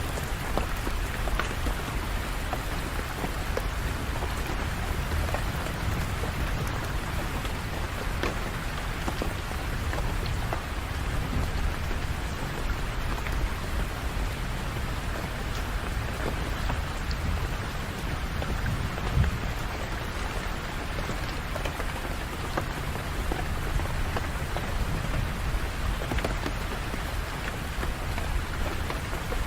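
Steady rain: a dense, even hiss with scattered small drop ticks and a low rumble underneath. One sharper hit stands out about two-thirds of the way through.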